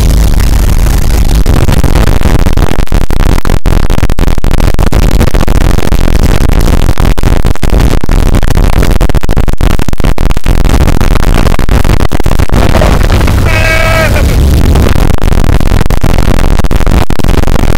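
Loud wind and engine noise rushing through the open door of a small high-wing jump plane in flight, overloading the microphone with many brief dropouts. A short yell about three-quarters of the way through.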